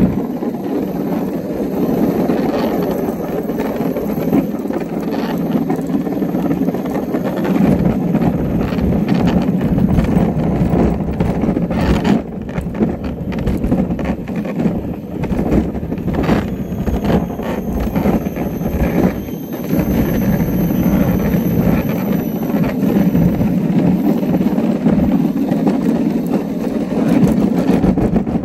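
Wheels of a gravity luge cart rumbling on an asphalt track as it coasts downhill, with a run of sharp knocks about halfway through.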